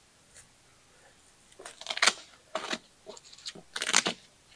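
Nylon strap webbing on a motorcycle tail bag being pulled loose through its buckles and fastenings: several quick rasping pulls, the loudest about two seconds in and again near the end.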